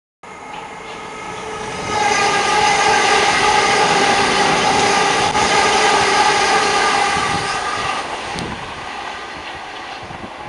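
Multiple-unit passenger train passing close by and running away: wheels on rail with a steady whine over the rumble, swelling about two seconds in and fading over the last few seconds.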